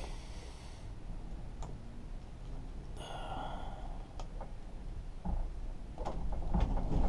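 Quiet soldering work on a battery terminal: a few light handling clicks and a couple of brief soft hisses over a low steady rumble.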